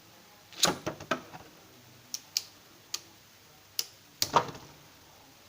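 Sharp plastic clicks and clattering knocks from Beyblade spinning tops and their parts: a quick cluster about half a second in, a few single clicks, then the loudest knocks near the end.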